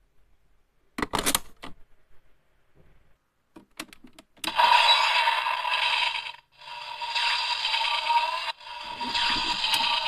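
Hard plastic clicks as a toy Rider buckle is snapped into place. About four and a half seconds in, the DX Desire Driver and Powered Builder Buckle toy start playing electronic sound effects and music through their small speaker, a thin sound without bass that breaks off briefly twice.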